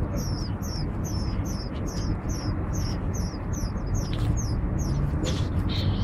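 Nestlings chirping in a steady run of short, high-pitched, falling cheeps, about three or four a second, the begging calls of young birds with gaping mouths. Under them is a steady low rumble, and there are a few brief rustles a little past the middle.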